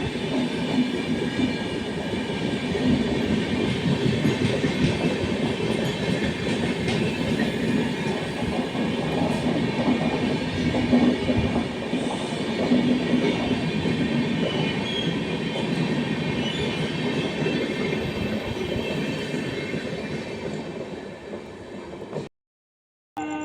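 Passenger train passing on the track: a steady rumble of coaches and wheels on rails that fades over the last few seconds, then cuts off abruptly.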